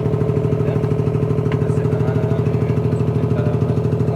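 An engine running steadily at idle, with an even, rapid pulse.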